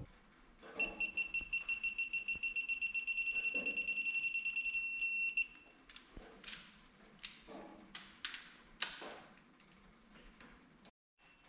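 Electronic beeper of a digital torque wrench sounding rapid, high beeps for about four and a half seconds as a connecting-rod cap bolt is pulled up to its set torque. Then come a few sharp metallic clicks and knocks from the wrench and tools on the block.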